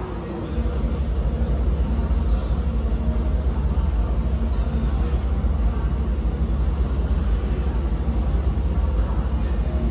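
Steady low rumble with no clear tone, stepping up slightly in loudness about half a second in.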